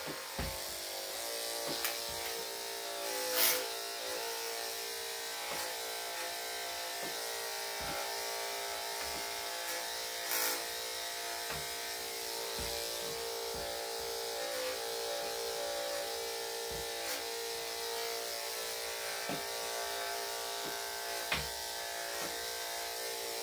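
Electric dog grooming clippers running steadily as they clip the hair on a dog's legs and feet. Two brief louder noises break in, about three and a half seconds in and about ten seconds in.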